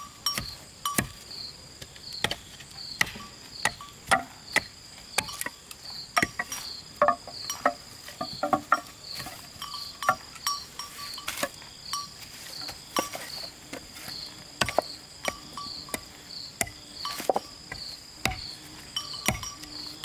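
Insect chirping in a steady high pulse about twice a second, under irregular sharp knocks and clicks.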